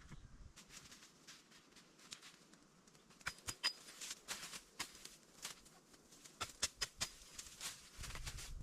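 Irregular light clicks and snaps, sparse at first and coming thicker from about three seconds in.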